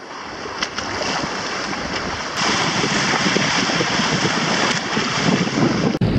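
Wind buffeting the microphone and waves slapping and spraying over the bow of a Hobie sailing kayak in strong wind, a steady rush that grows louder about two seconds in.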